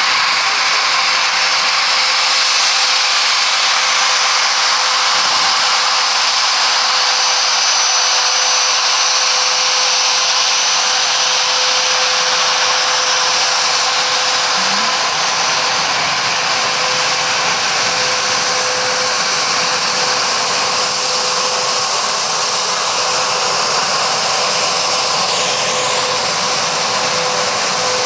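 Bombardier Global Express business jet's twin Rolls-Royce BR710 turbofans running at taxi power: a loud, steady rushing whine with high whistling tones. A higher whistle grows stronger in the second half as the jet turns away with its engines toward the listener.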